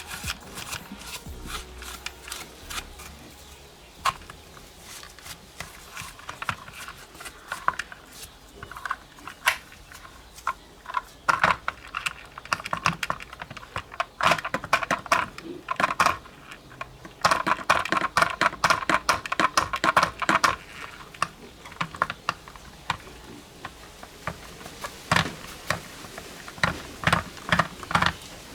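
Many small clicks and taps in quick bursts, like typing, from hands and small detailing tools working on a 1:32 diecast model car.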